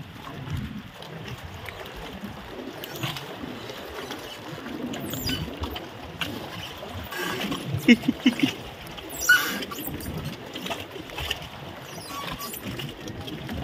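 Sea water sloshing and splashing against a small boat, with a few short knocks and a sharper splash about eight to nine seconds in.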